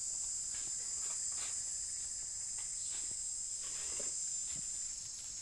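Dog digging in sand with its front paws: soft, irregular scraping strokes. Under them runs a steady high-pitched insect chorus, which is the loudest sound.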